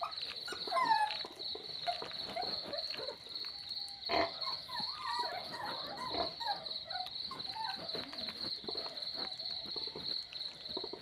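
Kitten mewing: a string of short, high cries that rise and fall, thickest in the middle. There is a single sharp knock about four seconds in, over a steady high pulsing tone.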